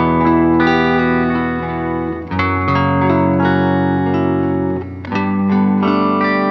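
Background music: sustained electric guitar chords with effects, changing chord about every two and a half seconds.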